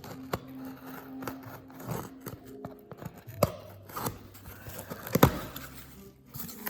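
A shipping package being opened by hand: packaging cut and torn, with rustling and a string of sharp clicks and snaps, the loudest one about five seconds in.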